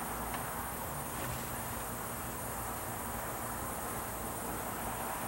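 Steady background of a high-pitched insect chorus over a low, even noise floor, with no distinct events.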